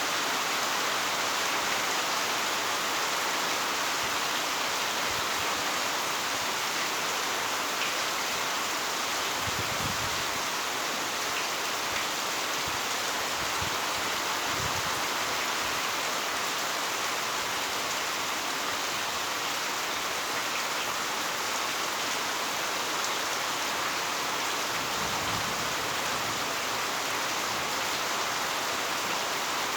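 Heavy rain falling steadily, with a few brief, faint low rumbles.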